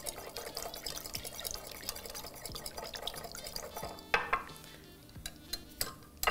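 Small silicone spatula stirring a thin, runny edible-lace mixture in a glass bowl: soft liquid sloshing with many light scrapes and clicks against the glass, and a louder knock about four seconds in.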